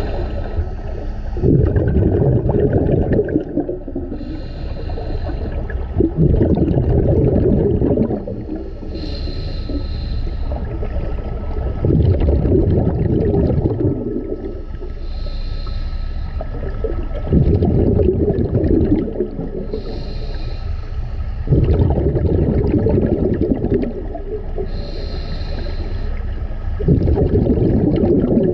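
A scuba diver breathing through a regulator, heard underwater: a loud bubbling rumble on each exhale, about every five seconds, with a short high hiss from the regulator between them on each inhale.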